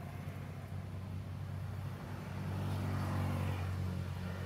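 A motor vehicle's engine running steadily, growing louder about two and a half seconds in and easing off near the end, as a vehicle passes by.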